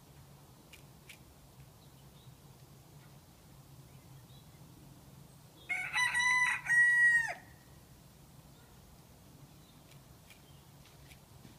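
A rooster crowing once, about six seconds in: a loud call of several notes lasting about a second and a half, the last note held and dropping away at the end.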